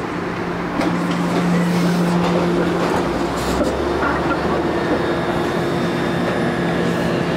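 Kawasaki light-rail streetcar passing close by on street track: a steady electric hum over the rolling noise of steel wheels on the rails, getting louder about a second in as the car draws alongside.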